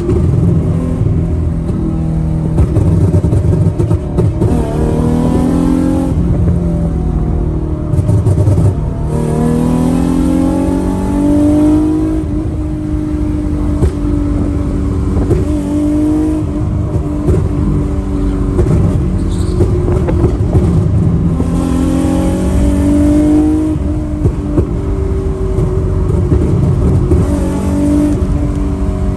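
Infiniti G37's swapped-in VR30 twin-turbo V6, heard from inside the cabin while driving. The engine note climbs in pitch under acceleration several times, dropping back between pulls, with stretches of steady cruising in between.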